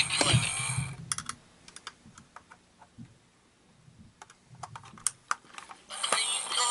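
Irregular small clicks and taps from hands handling the plastic mechanism of a Gemmy Johnny the Talking Toilet animatronic. The toy's recorded voice plays through its speaker for the first second and starts again about six seconds in.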